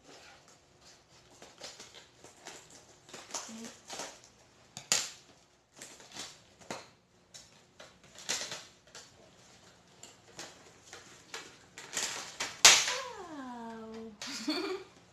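Crinkling and rustling of a cardboard product box and its sealed plastic packaging being handled and opened for a Boya microphone, in an irregular run of scrapes and crackles. Near the end, a drawn-out voice sound slides down in pitch and back up.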